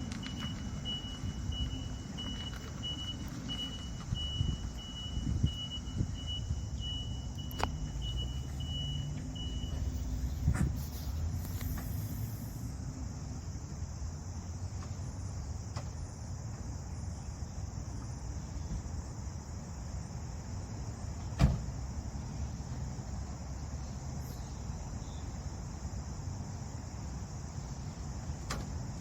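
A 1995 Subaru Sambar mini truck's small rear-mounted 660 cc four-cylinder engine running at low speed, with a high warning beep repeating about one and a half times a second that stops about ten seconds in. A few clicks, and one sharp knock about two-thirds of the way through.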